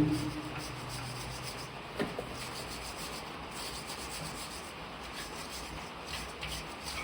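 Metal clanking from work on rotavator blades: a ringing clank that dies away at the start, a sharp knock about two seconds in, and a few light taps, over a steady hiss.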